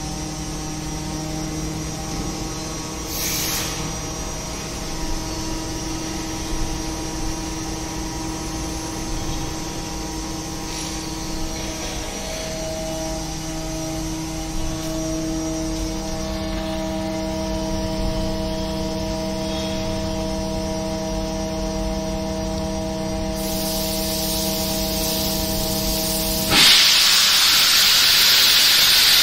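Chicago Pneumatic CPVS 50 PM variable-speed rotary screw air compressor running with a steady hum of several tones, some of which shift partway through. About three seconds before the end the hum cuts off abruptly and a loud, steady hiss of air takes over.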